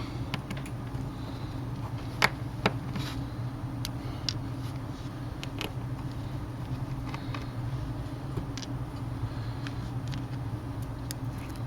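Small sharp clicks and taps of a screwdriver, screws and plastic parts being handled while a tablet's LCD is unscrewed and lifted out, scattered a few at a time over a steady low hum.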